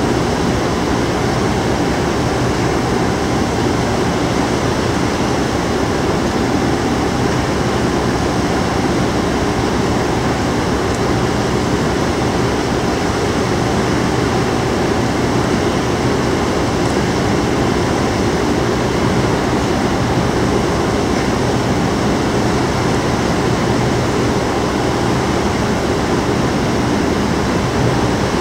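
Steady drone of a large cruise ship's machinery during berthing: a low, even hum under a constant rushing noise, with no change in level.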